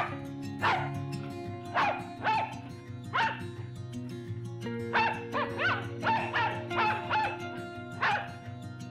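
An animal giving about a dozen short barks and yelps at irregular intervals, more rapidly in the second half, over steady soft background music.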